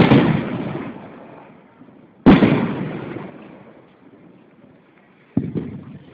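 Aerial firework shells bursting: three sharp booms, one at the start, one about two and a half seconds in and a weaker one near the end, each trailing off in a long echo.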